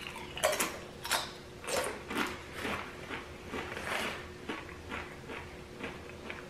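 Crunching of a Blaze Doritos tortilla chip being chewed, about two crunches a second, loudest in the first few seconds and softer toward the end.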